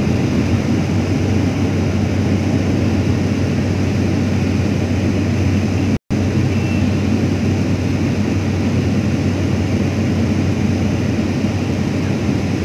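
Single-engine turboprop plane's engine and propeller droning steadily inside the cabin, with a steady low hum under a wide rushing noise, during the descent to land. The sound cuts out for a split second about halfway through.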